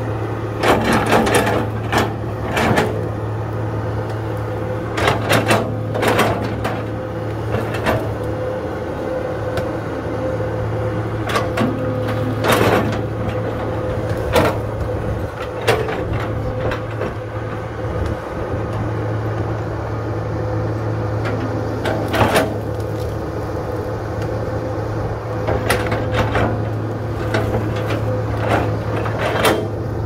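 Hydraulic excavator's diesel engine running steadily with a steady whine, and sharp knocks and clanks coming irregularly as the machine works.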